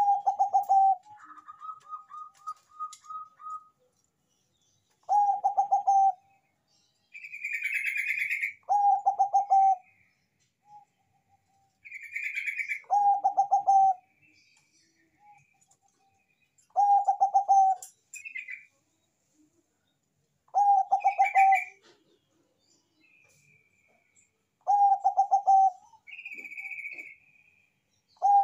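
Zebra dove (Bangkok perkutut) cooing: a loud, rapid, stuttering coo phrase about a second long, repeated about every four seconds.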